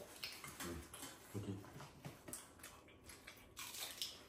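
Faint sounds of people eating with their hands: small clicks and smacks of chewing and of fingers working rice in metal bowls, with a brief low murmur about a second and a half in.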